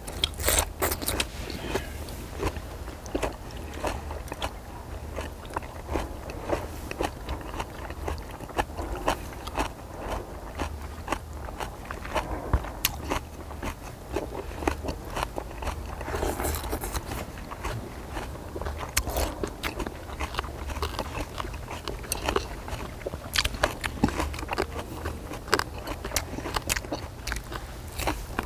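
Close-miked eating sounds: steady chewing and crunching of grilled pork belly and minari, with many short clicks and scrapes of utensils.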